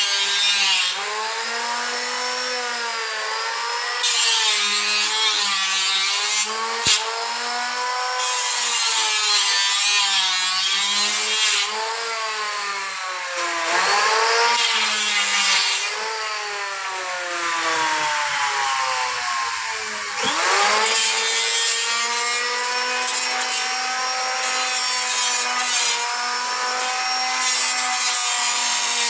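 A small electric power tool cutting wood, its motor whine wavering in pitch as it takes load, with bursts of grating cutting noise. About twenty seconds in, the motor bogs down sharply and then picks back up.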